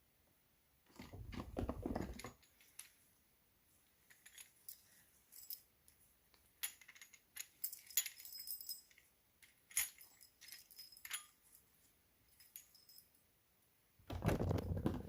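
Metal alarm padlock and its keys being handled: a string of light metallic clicks and clinks, some ringing briefly. There are two short bursts of rustling handling noise, about a second in and near the end.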